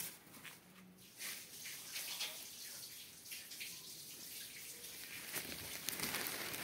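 A puppy digging in loose sand with its front paws: soft, irregular scratching and scraping, busiest about five to six seconds in.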